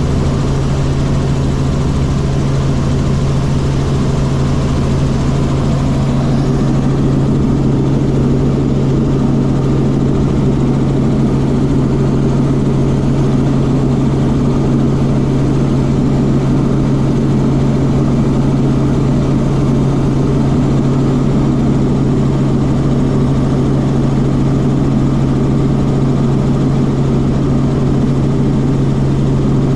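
Helicopter in flight: a loud, steady drone of engine and rotors, with a strong constant low hum that stays level throughout.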